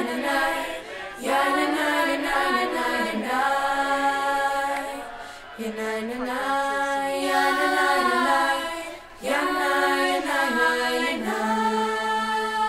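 Voices singing together without instruments, a slow chant-like melody in long held phrases with short breaks between them.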